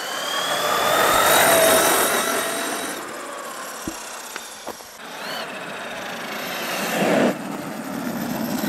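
Arrma Kraton EXB 1/8 RC truck's electric motor and drivetrain whining at full throttle, with tyre noise on asphalt, as it speeds past: the pitch climbs, peaks about a second and a half in, then falls away. A second rush builds about seven seconds in and cuts off suddenly.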